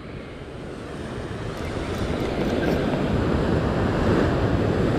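Sea surf surging and washing over shoreline rocks, building in loudness over the first two or three seconds and then running on steadily.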